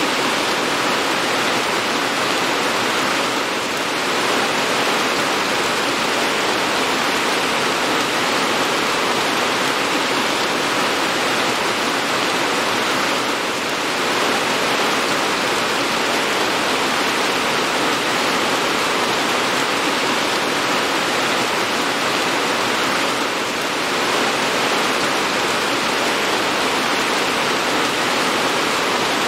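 Steady heavy rain, an even hiss of water with no single drops or thunder standing out, dipping slightly in level about every ten seconds.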